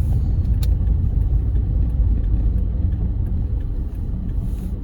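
Steady low rumble of a car's engine and tyres heard from inside the cabin as it creeps along a snow-covered road, with one faint click about half a second in.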